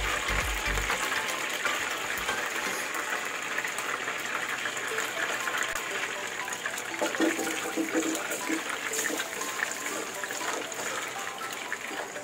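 Hot cooking oil sizzling and crackling steadily in a frying pan.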